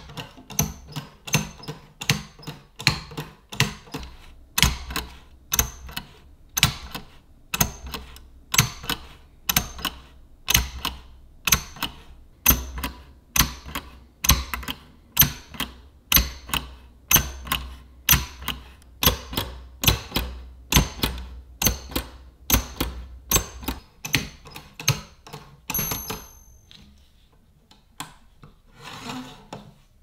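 An 1886 World index typewriter typing: a regular metallic clacking, about two strokes a second, as the pointer is pressed down on the lettered dial to print each character. Near the end comes a short high ring, then the clacking stops.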